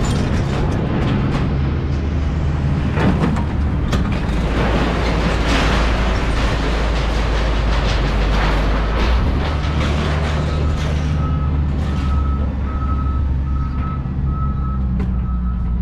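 Heavy vehicle engine running with rattling and clanking, joined about nine seconds in by a reversing alarm beeping steadily.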